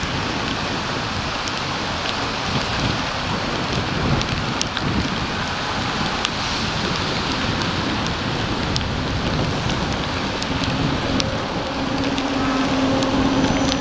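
Steady hiss of heavy rain on a wet road, picked up by a bicycle-mounted action camera, with scattered sharp ticks of raindrops. A low steady hum from traffic comes in near the end.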